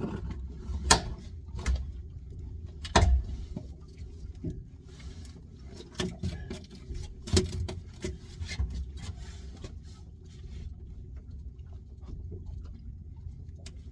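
Steady low hum of a fishing boat's engine, with scattered sharp knocks and clatter on board; three of the knocks stand out, about a second in, at three seconds and at seven and a half seconds.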